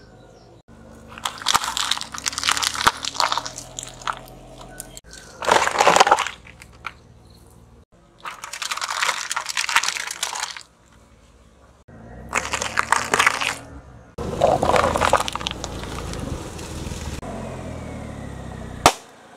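A car tyre rolling slowly over small objects and crushing them, in a series of crunching, crackling bursts a few seconds apart. Matchboxes and aluminium foil trays are flattened under the tread. Near the end a single sharp pop is a balloon bursting under the tyre.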